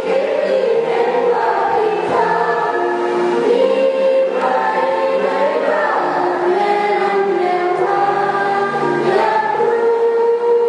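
Student choir singing in harmony, several voices holding long notes that shift together from one chord to the next.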